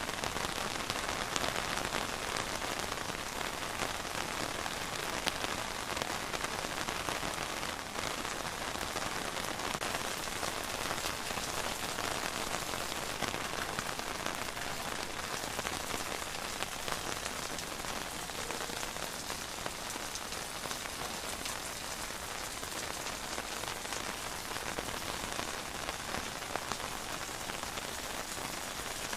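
Steady rain falling and pattering on surfaces, a dense even hiss with individual drops ticking through it.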